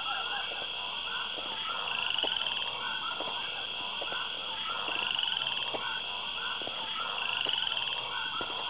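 A chorus of frogs calling in quick, overlapping croaks and chirps, over a steady high-pitched drone that swells every two to three seconds.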